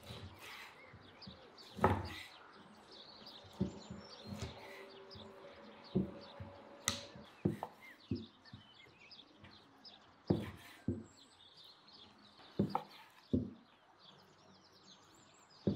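A chef's knife cutting through raw beef and striking a wooden cutting board: about a dozen short knocks at irregular intervals as the meat is cubed. Birds chirp faintly in the background.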